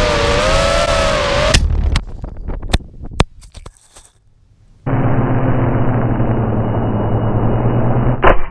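FPV racing quadcopter's motors whining with a wavering pitch, cut off by an impact about one and a half seconds in. A few sharp knocks and a short near-silent lull follow. From about halfway, a steadier, muffled motor whir with a low hum runs until a loud sharp hit near the end, as the quad strikes a pole.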